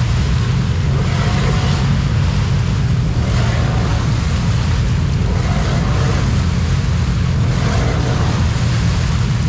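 Side-by-side UTV on tall paddle-style mud tires churning through a deep mud hole: a steady low engine drone with surges of revving about every two seconds as the tires throw mud and water.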